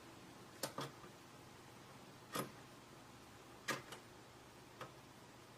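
Combination wheels of a SnapSafe lock box's three-digit lock clicking faintly as they are thumbed round one notch at a time to set a new code. There are about six short clicks, irregularly spaced.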